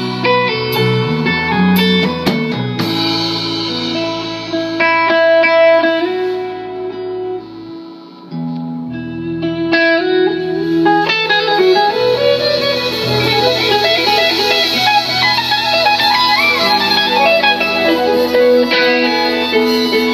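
Rock band playing live: electric guitar to the fore, with violin, drums and electric keyboard. Sharp drum hits come in the first few seconds, and the music briefly drops in level about eight seconds in.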